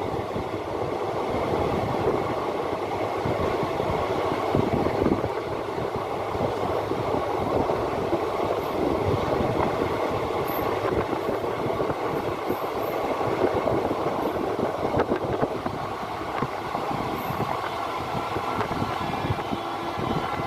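Sangam Express passenger coaches rolling along the track: a steady, loud rumble of wheels on rails with continual clattering knocks.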